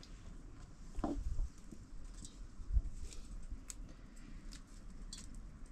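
Fresh fiddlehead fern stalks being snapped and handled by hand: scattered small, crisp snaps and rustles, with a soft thump about a second in and another near three seconds.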